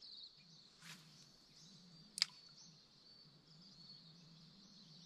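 Faint river-bank bush ambience: a steady high-pitched chorus of insects and birds, with a soft click about a second in and a sharper, louder click a little after two seconds.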